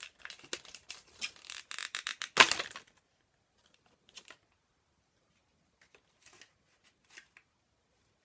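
Plastic toy packaging crinkled and torn open by hand: dense crackling for about three seconds, loudest about two and a half seconds in, then only a few faint crinkles.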